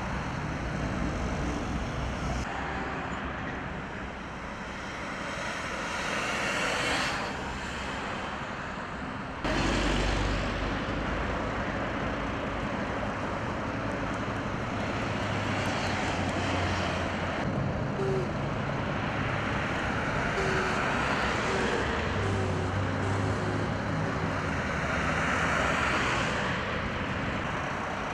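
Road traffic: vehicles driving past one after another, each swelling and fading over a steady road noise, with a few sudden jumps in the sound.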